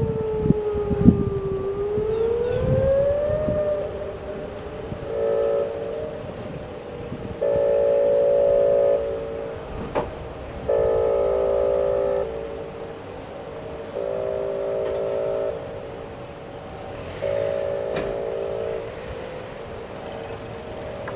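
Outdoor tornado warning sirens sounding for a test. One siren tone glides down and then back up in the first few seconds. After that, a steady chord of siren tones swells in loud stretches about every three seconds, with a couple of sharp clicks.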